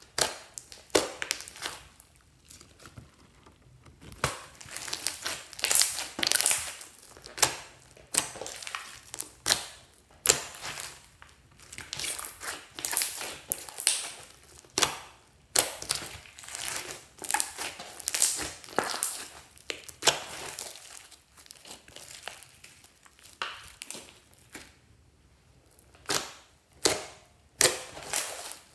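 Hands squishing, kneading and stretching glittery slime: wet squelching and crackling in irregular bursts, with a few short sharp pops near the end as fingers poke into it.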